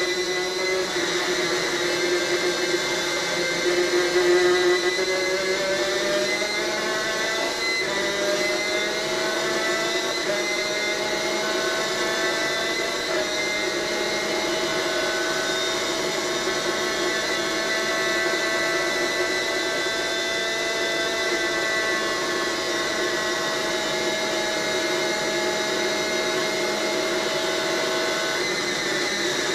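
Superkart's two-stroke engine at racing speed, heard from onboard and played through a TV speaker. Its high note climbs in pitch over several seconds, with a couple of small dips, then holds steady at high revs.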